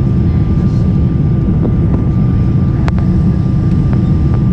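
Steady roar of a Boeing 747 jetliner's engines and rushing air, heard inside the cabin during climb-out, with a faint steady whine above it.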